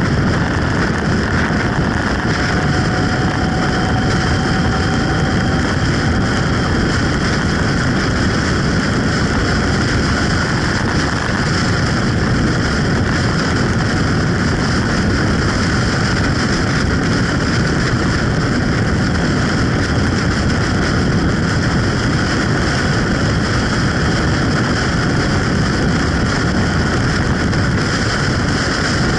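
Steady rush of wind and road noise from a motorcycle cruising along an open road, picked up by a camera on the moving bike.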